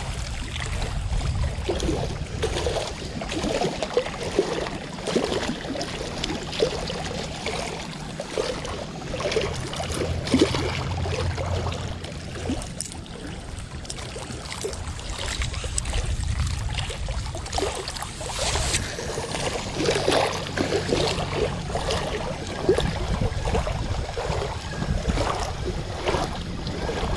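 Wind rumbling and buffeting on the microphone, with small waves lapping over it.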